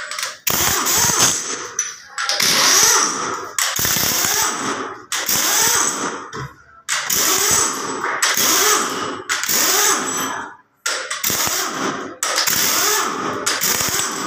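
Pneumatic impact wrench hammering in repeated bursts of one to two seconds with short pauses, undoing the head bolts of a Caterpillar C13 diesel engine.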